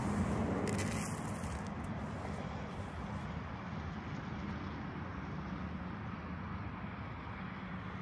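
Steady low background hum, with a brief rustle of sunflower seeds shifting in a hand about a second in.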